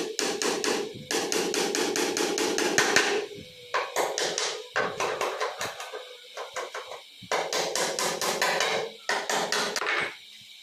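Claw hammer driving nails through a laminated chipboard table top into its chipboard leg, in quick runs of several blows a second with short pauses between runs.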